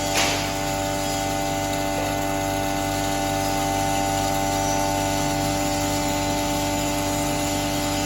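Double-chamber maize grinder running steadily: a continuous machine hum with a few steady tones over it.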